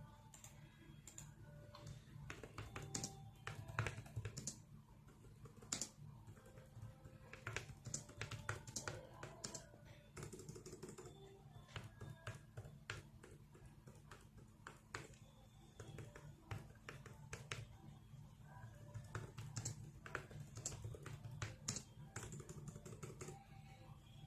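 Typing on a Logitech K380 keyboard: its low-profile scissor-switch keys clicking in a quick, irregular patter. A steady low hum runs underneath.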